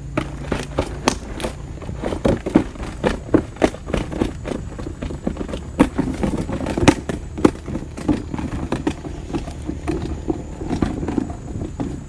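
Rustling, scraping and irregular knocks of a fabric keep bag being handled with a freshly caught tilapia inside it, the fish jolting the bag.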